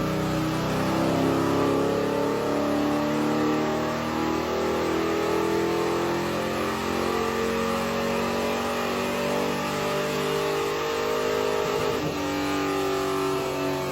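Car engine with a JB Weld–patched head gasket running hard under load during a power run, a loud, steady engine note with no break.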